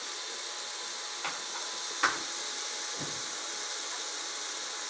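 Onion-tomato masala with powdered spices frying in oil in a pan: a steady sizzling hiss. Two sharp clicks come a little past one and two seconds in, the second one louder.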